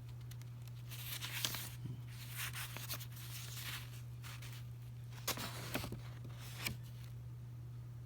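Paper instruction pamphlet being handled and its pages turned: rustling and crinkling in a few short spells, over a steady low hum.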